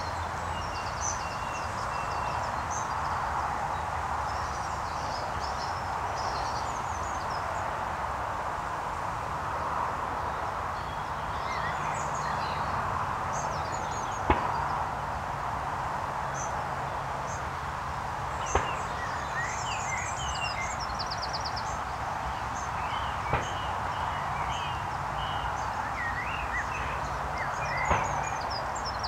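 Outdoor ambience: birds chirping and trilling over a steady background noise and a low hum, with four sharp clicks spread through.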